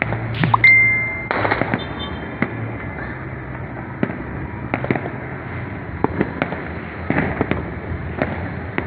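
Distant New Year's fireworks and firecrackers going off irregularly across a city: scattered bangs and pops. The loudest bang comes about half a second in, followed by a brief high whistle.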